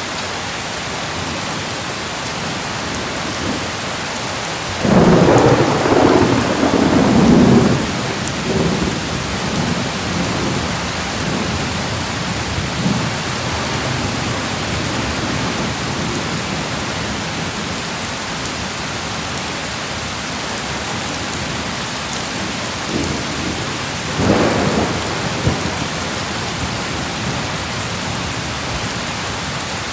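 Steady heavy rain hissing, with thunder rolling loudly about five seconds in for some three seconds, and a shorter clap of thunder near the end.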